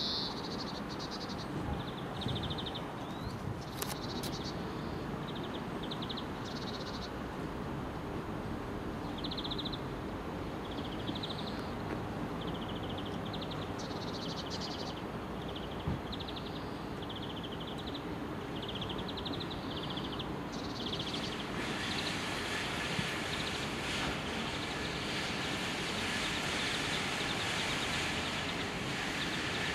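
A small bird chirping in short, repeated trills over a steady background hum. About twenty seconds in, the hiss of an approaching passenger train rises and takes over as the louder sound.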